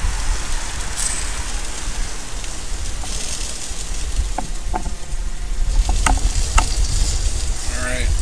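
Rotisserie chicken sizzling on a gas grill as fat and juices drip, with a steady hiss and a few sharp pops and crackles in the second half, over a low rumble.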